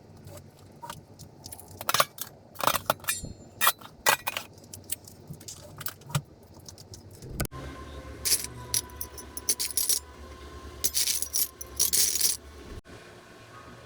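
Small hard objects clinking and rattling in irregular bursts as they are handled. About halfway through, a steady low hum comes in under more clatter.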